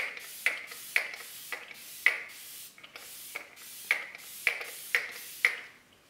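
Finger-pump mist sprayer of a NYX Bare With Me setting spray bottle pumped over and over, about two pumps a second. Each pump is a sharp click and a short hiss of fine mist. The spritzing stops about five and a half seconds in.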